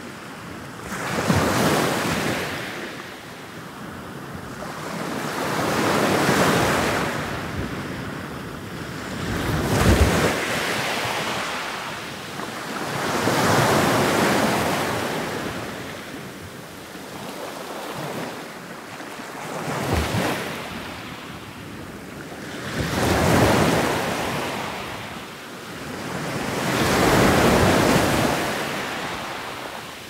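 Ocean surf breaking in repeated surges, each wave swelling to a loud wash of spray and then fading, about every four seconds.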